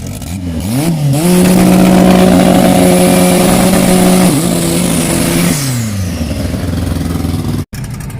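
Turbocharged drag car's engine during a burnout: two quick revs, then held at a steady high rev for about four seconds over the hiss of spinning tyres, before the revs fall away.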